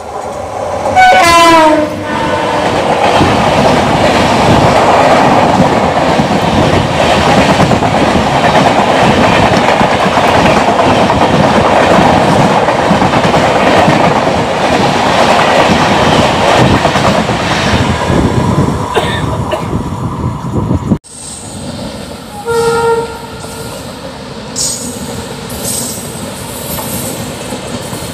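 A passing express train's horn sounds with a falling pitch, then the close pass of its LHB coaches on the next track: a loud, steady rush of wind and wheels with rapid rail clatter for about twenty seconds, heard from an open train door. After an abrupt cut, a quieter passing train with a short horn blast.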